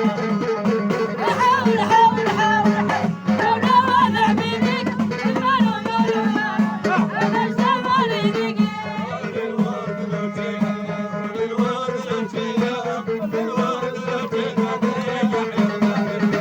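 Moroccan folk music played live: a plucked string instrument over a steady low drone, with a wavering, ornamented melody line.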